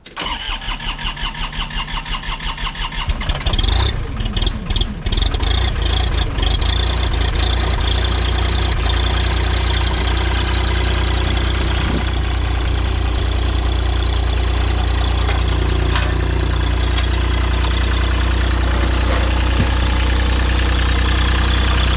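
New Holland LS140 skid steer's diesel engine cold-started after sitting over two months. The starter cranks it for about three seconds, it catches, runs unevenly for a couple of seconds, then settles into a steady idle.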